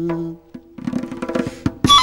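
A man's held sung note ends in the first half-second, then a tombak (Persian goblet drum) plays a run of quick finger strokes. Near the end a ney (Persian end-blown reed flute) comes in with a breathy attack and a high note.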